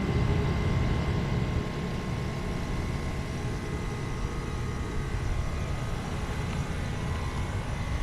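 Carrier Performance 3.5-ton heat pump outdoor unit running just after start-up: the compressor hums and the condenser fan moves air steadily, with a faint steady whine.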